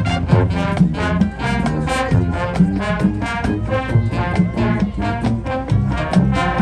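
High school marching band playing: brass horns over a drumline, with regular drum hits keeping a steady beat.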